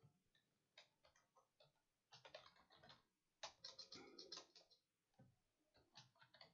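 Faint computer keyboard typing: short runs of rapid keystrokes with brief pauses between them.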